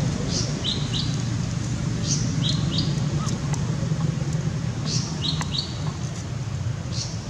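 A bird repeating the same short song phrase four times, each a high downward sweep followed by two quick falling notes, over a steady low hum.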